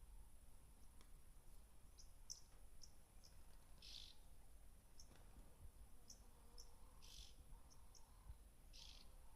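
Faint wild bird calls: scattered short high chirps, with three longer calls about four, seven and nine seconds in.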